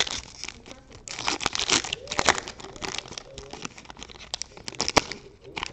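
Foil wrapper of a Topps Chrome trading-card pack being torn open and crinkled in the hands: a run of crackling rustles, with one sharp crackle near the end.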